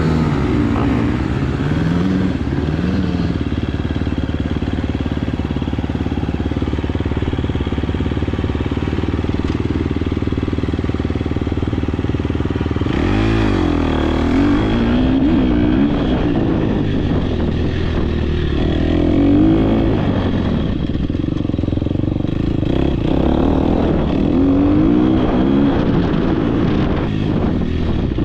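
Dirt bike engine heard from the bike or helmet camera, running fairly steadily at first. About halfway in it gets louder in the low end, and the revs rise and fall over and over as the bike accelerates and shifts through the gears.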